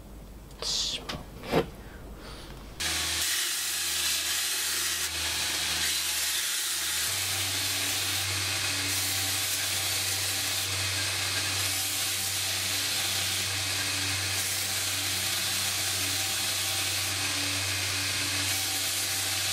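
Hot steel axe head quenched in a bucket of water, hissing in a few short bursts. Then, from about three seconds in, a belt grinder runs steadily with the axe head held against its belt.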